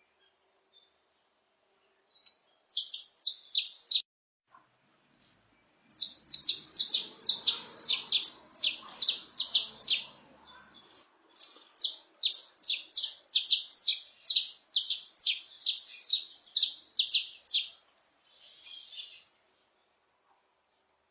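Male saffron finch (canário-da-terra) singing: three bouts of rapid, high, repeated notes separated by short pauses, then a faint short phrase near the end.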